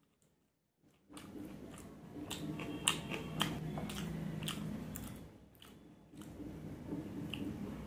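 Close-miked chewing of a mouthful of roti and vegetable sabzi: wet mouth sounds with sharp crunches, starting about a second in.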